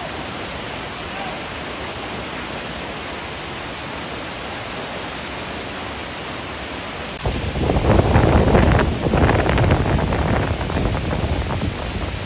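Steady rush of a waterfall. About seven seconds in it becomes suddenly louder and closer, with gusts of wind buffeting the microphone.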